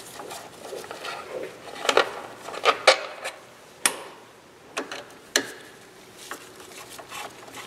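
Hand Torx driver clicking and clinking against the screws and housing of an Espar D5WSC coolant heater as its cover screws are taken out. About seven sharp clicks, irregularly spaced, with the loudest about three seconds in.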